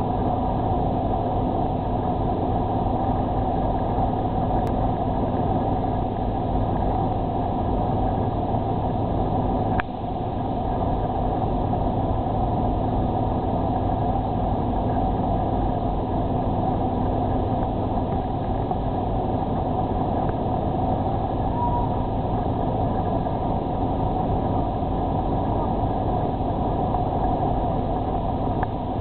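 Steady drone of a large car ferry's engines and onboard machinery, heard from the outer deck as the ship gets under way; a constant low hum with a few steady tones over it. One short click about ten seconds in.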